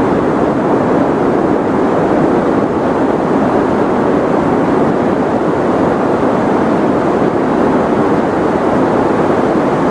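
Continuous white noise for sleep: an even, unbroken rushing hiss with no changes in level, weighted toward the low and middle range and dull in the treble.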